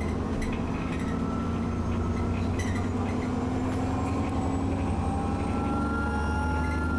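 Alexander Dennis Enviro 400 double-decker bus's diesel engine pulling hard, heard from inside the bus, its pitch climbing slowly as it accelerates. A rising whistle from the wheezing turbo runs over the engine note, with a brief rattle a few seconds in.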